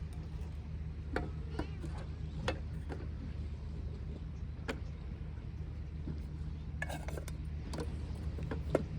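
A steady low engine-like drone, with scattered light clicks and taps on top of it.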